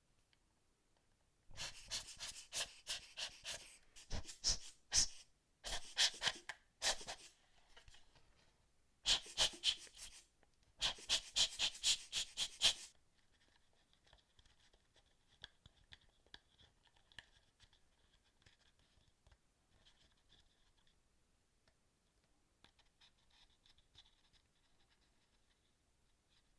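Hands working on a plastic PS4 controller: quick scratchy strokes in four bursts over about ten seconds, then only faint light scraping and ticks.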